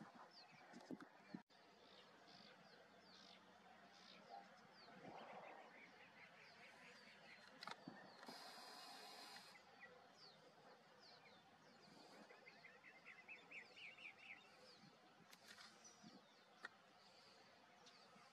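Quiet outdoor ambience with faint, scattered high bird chirps, a short run of quick chirps about two thirds of the way through, and a brief hiss near the middle.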